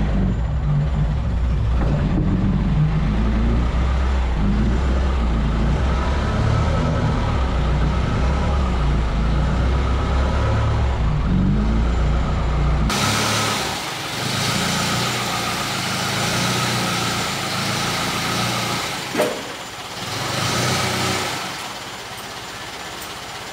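Forklift engine running steadily while it pushes a heavy load. About 13 seconds in the drone cuts off abruptly, giving way to a quieter even hiss with one brief sharp sound near the end.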